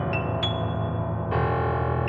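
Solo piano playing a slow, lyrical passage: two single melody notes struck near the start, then a fuller chord a little over a second in, all ringing over held bass notes.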